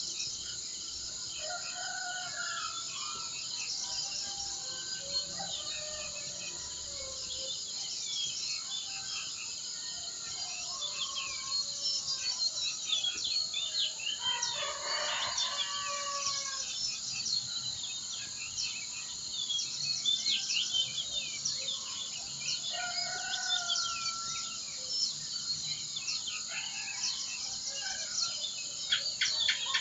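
Many wild birds chirping and whistling over a steady, high insect drone. A longer, louder call comes about halfway through, and a fast trill near the end.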